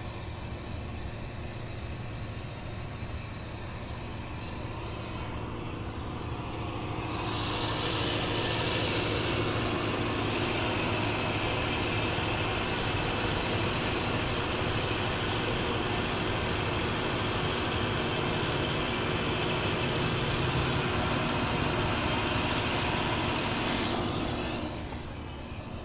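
Heavy truck moving along a highway: a steady drone of engine and road noise. About seven seconds in it grows louder and hissier with rushing wind and tyre noise, and it falls back shortly before the end.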